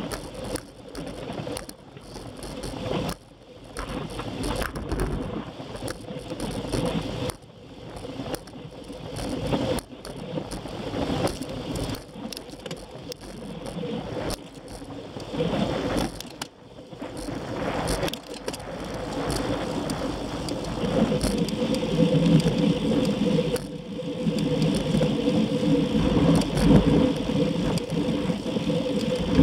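Wind rushing over a bike-mounted camera's microphone, with tyre noise and rattling from a road bicycle ridden on asphalt. The rushing swells and dips unevenly, and a steadier low hum joins in the last third.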